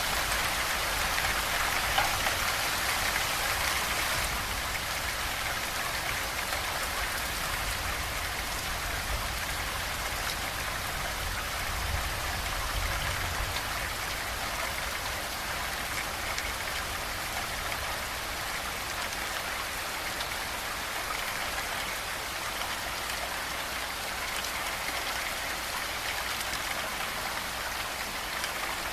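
Steady rain falling and pattering on a surface: an even, unbroken hiss of drops.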